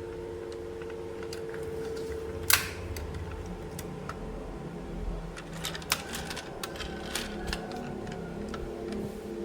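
Plastic toys and packaging being handled: scattered clicks and taps, the sharpest about two and a half seconds in and a quick run of them past the middle, over a steady low hum.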